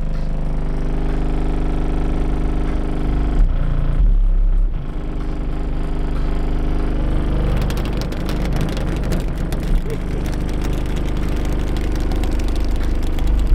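A car driving, heard from inside: a steady engine hum with a deep low rumble under it, and road and wind hiss that grows louder in the second half.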